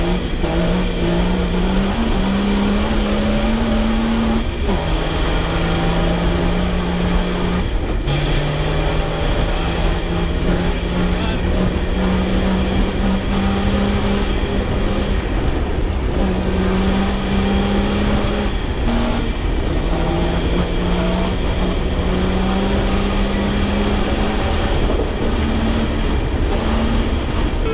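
Off-road 4x4's engine working hard at speed. Its pitch climbs in steps and drops back at each gear change, repeating several times, over a steady low rumble.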